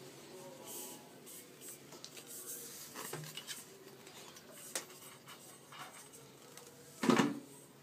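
Handling noise from a mop and its telescopic shaft being moved by hand: scattered light clicks and rustles, with one louder short thump about seven seconds in.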